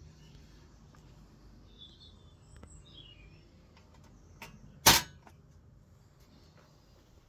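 A single sharp snap about five seconds in, with a lighter click just before it. Faint bird chirps sound in the background.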